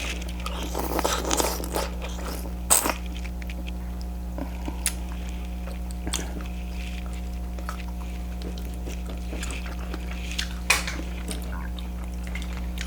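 Close-miked eating sounds: chewing and wet mouth noises over seafood, with a few sharp clicks, the loudest about 3 s and 11 s in. A steady low hum runs underneath.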